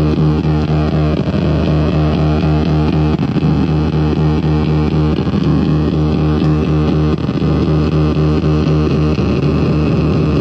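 Akai Rhythm Wolf drum machine's beat run through a Time Box GLITCH pedal, with the glitch effect engaged. The drums are chopped into a dense, rapidly repeating noisy stutter over a droning low tone.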